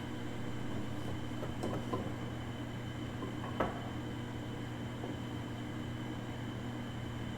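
Steady electric hum of a fluid transfer pump running, pumping Hy-Tran transmission-hydraulic fluid into the tractor, with a couple of faint ticks.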